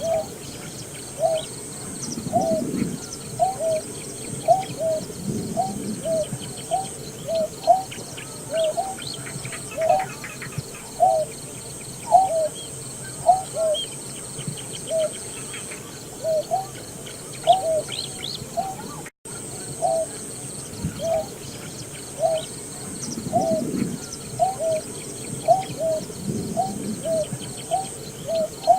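Greater painted-snipe calling: a long, even series of low hooting notes, each a short rising-then-falling hoot, about one and a half a second.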